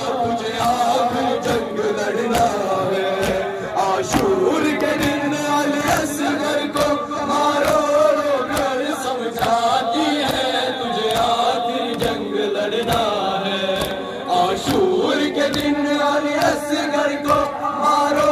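A crowd of men chanting an Urdu noha in unison, with repeated sharp slaps of hands beating on chests (matam) running through the chant.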